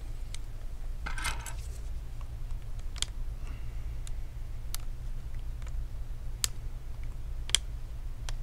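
Small sharp clicks and taps, about half a dozen spread apart, with a brief scrape about a second in, as gloved fingers unclip the antenna cable connectors from a laptop's M.2 Wi-Fi card. A steady low hum runs underneath.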